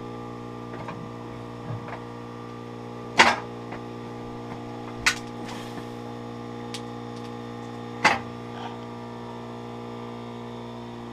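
Three loud, sharp clanks, about 3, 5 and 8 seconds in, with a few fainter knocks, as a wheeled shop jack is rolled and its handle worked, over a steady electrical hum.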